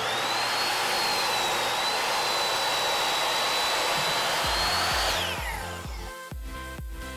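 Ryobi sliding miter saw running and cutting through a thick cherry slab, a loud steady motor whine that dips slightly under load. About five seconds in the trigger is released and the whine falls as the blade spins down, while background music with a steady beat comes in.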